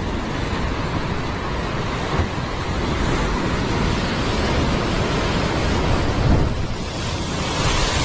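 Heavy ocean surf breaking against and washing over sandstone rock ledges, loud and continuous. A wave hits hardest about six seconds in, followed by the hiss of foam washing across the rocks near the end.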